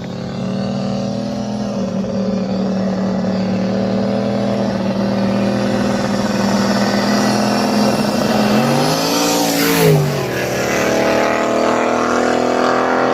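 Street-racing cars at full throttle: a steady engine drone, then about nine seconds in the cars pass at speed, their engine note sweeping up and dropping away as they go by.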